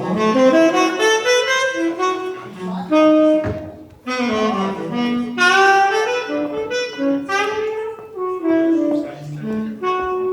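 Big band playing swing jazz, with a saxophone carrying a quick melodic line over the brass and rhythm section.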